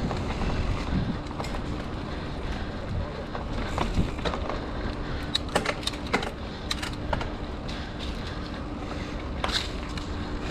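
Mountain bike riding a dirt trail: tyre and wind noise on the microphone, with frequent sharp clicks and rattles from the bike jolting over rough ground.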